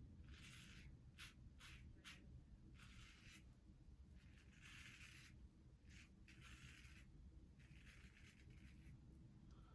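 Faint strokes of a Wilkinson Sword double-edge safety razor scraping through lathered stubble: about eight short scrapes, each around half a second, with brief pauses between.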